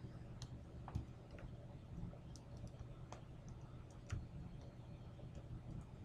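A steel hook pick ticking against the pin stacks inside a Master Lock Pro Series 6850 padlock's core: a handful of faint, irregular clicks, the sharpest about a second in and about four seconds in. The pins are still heavily bound under the tension wrench's pressure.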